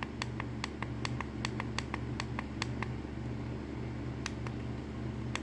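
Rapid, repeated clicks of a digital plug-in thermostat's buttons being pressed to step the set temperature, about three to four a second, over a steady low hum.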